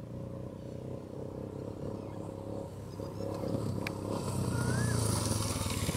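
Royal Enfield Himalayan's 411 cc single-cylinder engine running faintly at a distance and growing louder as the motorcycle approaches. A bird chirps twice near the end.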